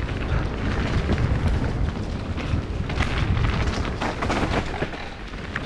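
Mountain bike riding down a dirt trail: a steady low rumble of wind buffeting the camera microphone and tyres on the ground, with clattering from the bike jolting over bumps around three and four seconds in.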